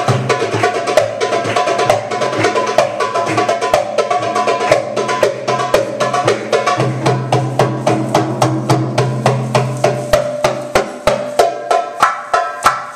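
Live Middle Eastern hand drums, including a frame drum, playing a fast belly-dance drum solo of dense, sharp strokes. A low held note sounds under the drums for a few seconds midway. Near the end the drums settle into evenly spaced strong beats at about four a second.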